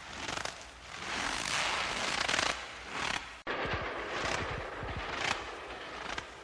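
Footsteps crunching through snow, one step after another in uneven swells, with a brief sharp break in the sound about three and a half seconds in.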